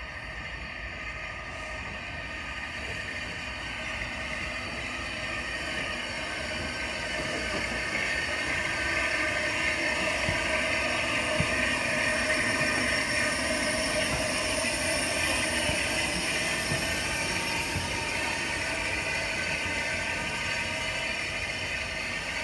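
Steam locomotive Repton, a Southern Railway Schools-class 4-4-0, moving slowly along the track with a hiss and steady high ringing tones. It grows louder to a peak about halfway through, then eases off a little.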